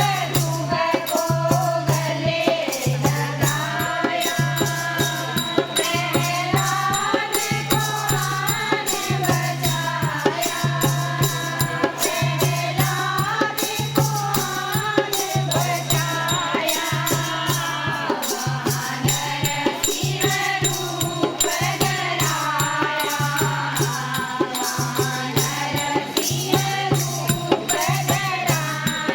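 Group singing of a devotional Hindu bhajan, kirtan style. A fast beat of shaken rattle-type percussion runs under the melody, and a low note sounds on and off about once a second.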